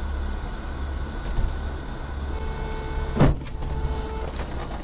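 Steady low rumble of a car driving, heard from inside the cabin. A steady tone sounds for about two seconds in the second half, and partway through it comes one loud, sharp thump.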